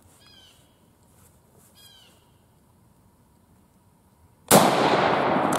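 A single rifle shot from an Argentine 1891 Mauser, chambered in 7.65×53mm, about four and a half seconds in. Its report is sudden and loud and rings on for about a second.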